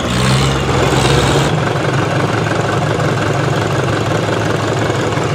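Centrifugal casting machine running: a large steel mould spinning on its rollers with a steady mechanical hum and rumble. The sound changes abruptly about a second and a half in, losing some of its high hiss.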